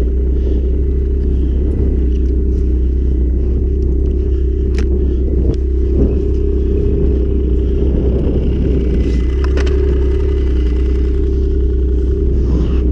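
A motor vehicle running steadily with a heavy, unbroken low rumble, and a few brief clicks or knocks now and then.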